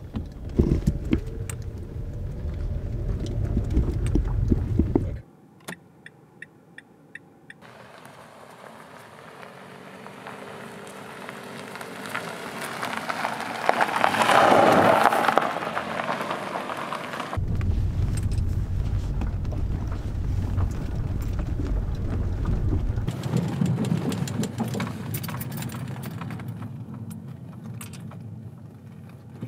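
A car driving: low engine and road rumble inside the cabin that cuts off about five seconds in, then a run of light ticks, then a car going past with tyre and engine noise that swells and fades. The cabin rumble returns past the middle and thins out near the end.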